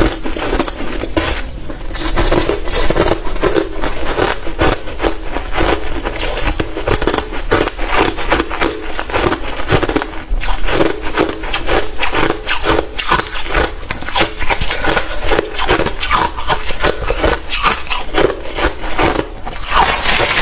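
Close-up crunching of hard refrozen crushed ice being chewed, the crunches coming rapidly, several a second, with no pause.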